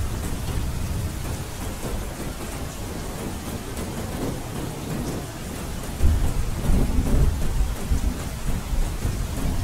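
Steady rain with thunder rumbling low underneath; the rumble jumps louder about six seconds in.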